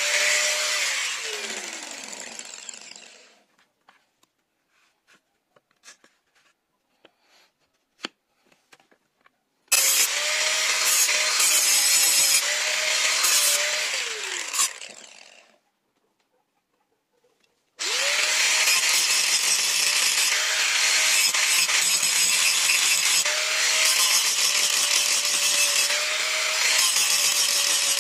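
Bosch angle grinder grinding a steel knife blade in three bursts. Twice it is switched off and its whine falls as the disc spins down, leaving short quiet gaps with a few small clicks. It starts again abruptly about 18 seconds in and grinds on steadily.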